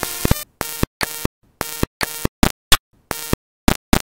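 Animated intro music sting, chopped into about ten short, abrupt bursts with dead silence between them in an uneven stuttering rhythm.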